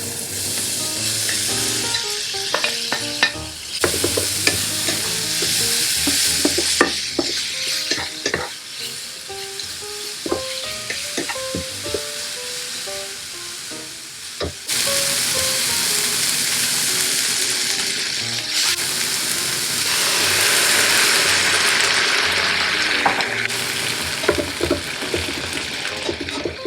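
Food sizzling in a frying pan, stirred with clicks and scrapes of a utensil. The sizzle dies down for several seconds in the middle, then comes back strongly.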